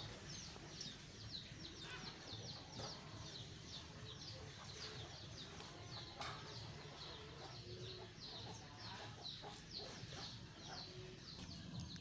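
Chickens cheeping: faint, high-pitched, falling chirps repeated two or three times a second, with a few soft knocks.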